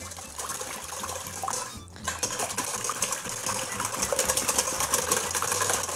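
Whisk beating raw eggs in a stainless steel mixing bowl: a fast run of metallic clicks against the bowl with the slosh of the eggs, getting quicker and steadier about two seconds in.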